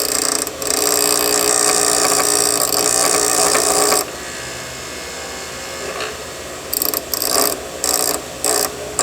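Grinder taking the corners off a small steel M6 nut: one long grinding pass of about three seconds, then a quieter stretch with the wheel still running, then several short touches near the end.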